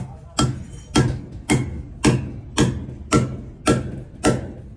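Hand hammer striking at a brick-and-mortar pillar: a steady run of sharp blows, just under two a second, each with a brief ring.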